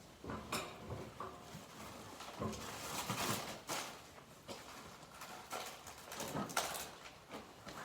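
Irregular knocks, clanks and scrapes of hand work with tools and metal parts, a dozen or so separate sudden sounds.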